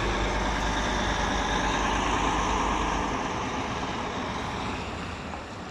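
Heavy diesel engine of farm machinery running steadily, growing quieter over the last couple of seconds.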